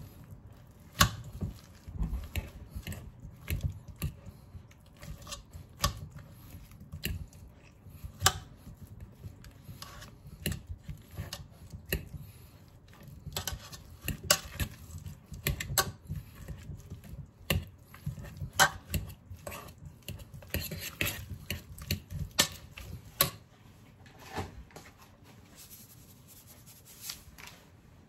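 A fork mashing boiled potatoes with butter and cream into a chunky mash, clinking and knocking irregularly against the cookware with soft low thuds.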